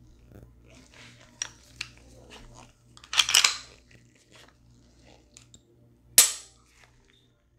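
Function check of an unloaded Gen 3 Glock 22C pistol: a few light handling clicks, then a loud metallic clatter as the slide is racked about three seconds in. A single sharp click follows a little after six seconds as the trigger is pulled and the striker snaps forward in a dry fire.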